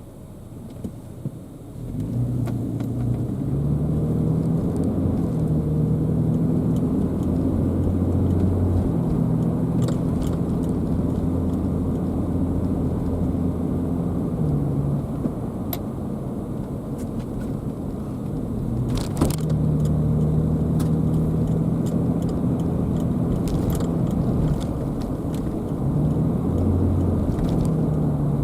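Car on the move: engine and road noise swell about two seconds in as it picks up speed. The engine hum then steps in pitch several times, like gear changes, with a few light clicks and rattles.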